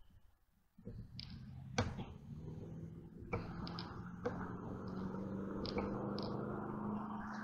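A low, steady hum from a vehicle engine, starting about a second in and slowly growing louder, with scattered light clicks and ticks over it.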